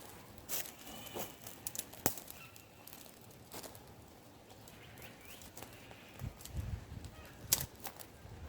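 Campfire crackling, with scattered sharp pops and snaps; a low rumble comes in about six seconds in.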